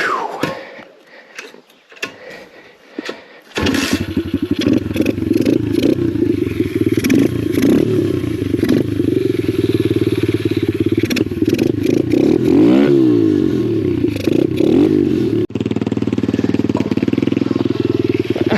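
Lifan 125 single-cylinder pit bike engine starting about three and a half seconds in, after a few scattered knocks, then running steadily, with one quick rev that rises and falls a little past halfway.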